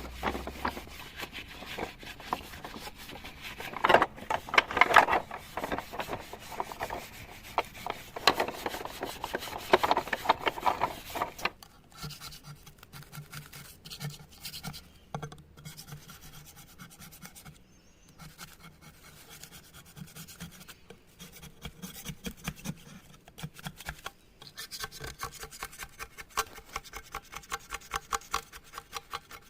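Rapid hand rubbing and scraping strokes on a chainsaw part, loudest in the first third. After that come quieter strokes over a faint low drone, then quick fine strokes again near the end.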